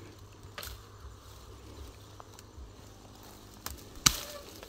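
Quiet rustling of twigs and leaves with a few faint clicks, then one sharp snap about four seconds in as pruning shears cut through a branch.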